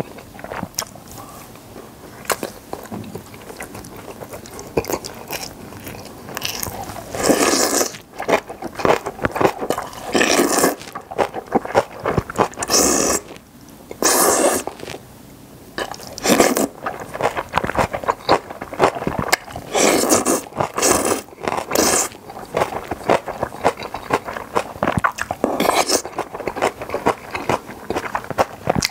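Close-miked eating of jjamppong jjageuli, a spicy seafood noodle stew: continuous wet chewing and mouth clicks, broken about nine times by louder bursts a second or less long.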